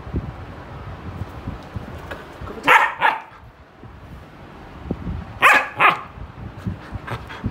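German shepherd puppy barking in two quick pairs, two barks a few seconds in and two more about three seconds later. Low rustling and bumps from movement on the bed sound in between.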